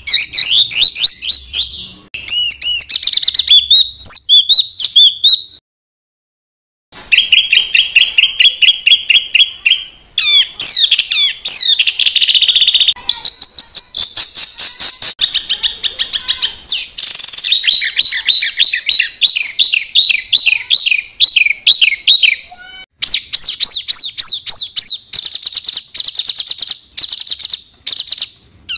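Songbird song made of fast, densely repeated sharp high notes and trills, the rapid-fire 'tembakan rapat' style of filler song. It cuts out for about a second near the quarter mark, then resumes with different runs of notes.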